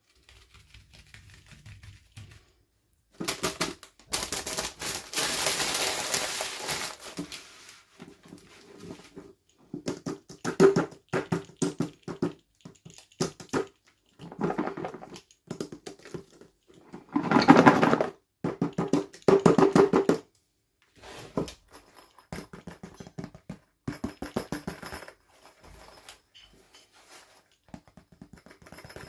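Handling sounds of unboxing small plastic toys: packaging rustling and crinkling in several bursts, with irregular taps and clicks of plastic pieces.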